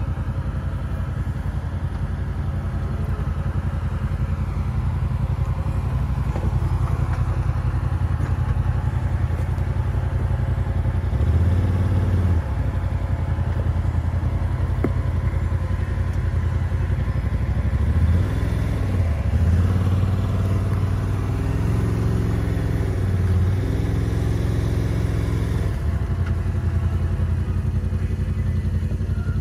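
Side-by-side UTV engine running under way on a trail, with the engine note rising and falling several times in the second half as the throttle changes.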